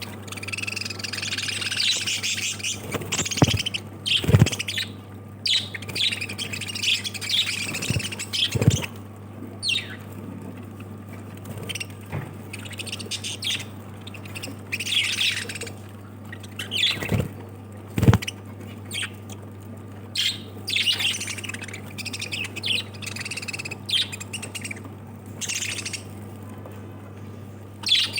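A group of pet lovebirds chirping and squawking in rapid, overlapping calls, with a few sharp knocks among them.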